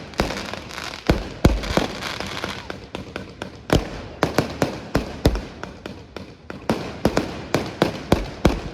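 Aerial fireworks bursting in quick succession: a dense run of sharp bangs and crackles, with a few deeper, heavier booms among them.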